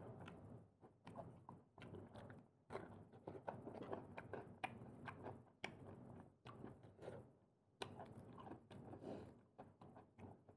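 A person chewing and biting prawns and clams, with many small wet clicks and smacks in an irregular rhythm.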